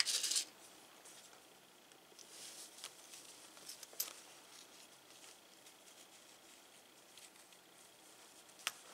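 Quiet handling noise from hands fitting a zipper and felt to a crochet bag: a short rustle at the start, then faint rustling and a few small clicks, the sharpest about four seconds in.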